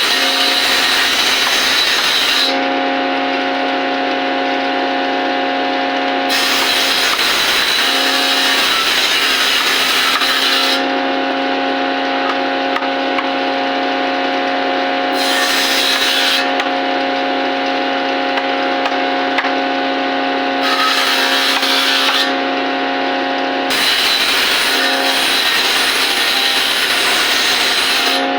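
Electric woodworking power tool running with a steady motor whine, cutting into wood five times. Each cut is a few seconds of loud rasping noise over the whine: at the start, from about 6 to 11 seconds, briefly around 15 and 21 seconds, and again near the end.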